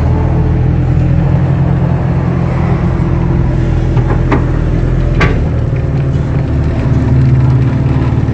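Kato crawler excavator's diesel engine running steadily, with two sharp clicks about four and five seconds in.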